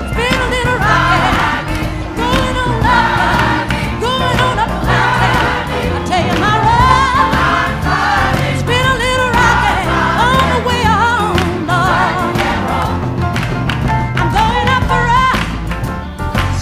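Background music: a song with singing voices, the sung lines wavering with vibrato, over a steady bass line.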